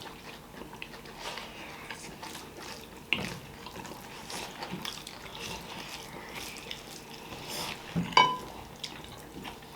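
Soft wet eating sounds from a meal of fish curry and rice: small smacks and clicks of picking through the bony fish and chewing, with a louder click about three seconds in and a sharper one about eight seconds in.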